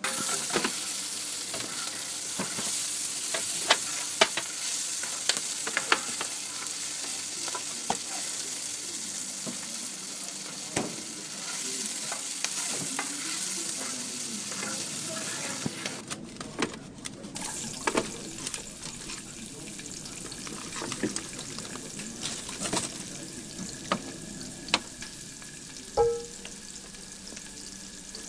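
Sliced onions frying in hot oil and ghee in a large metal pot: a sizzle that starts suddenly as the onions go in, then runs on and slowly eases, dotted with sharp pops and clicks. There is a brief break in the sound about sixteen seconds in.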